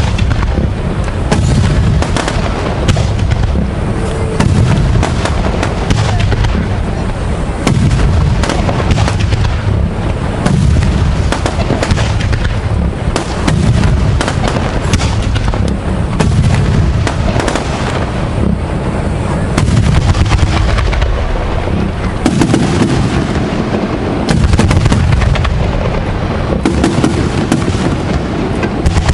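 Aerial fireworks display at its height: shells bursting in a dense, continuous run of deep booms overlapping one another, with crackling over them.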